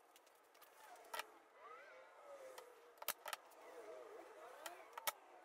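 Quiet workshop handling sounds: a few sharp clicks and taps, two close together about three seconds in, over faint voices in the background.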